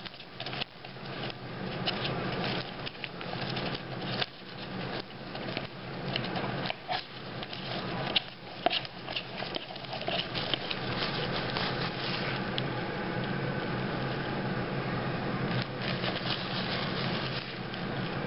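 Microwave oven running with a steady low hum, with irregular clicks and knocks over it, most of them in the first twelve seconds.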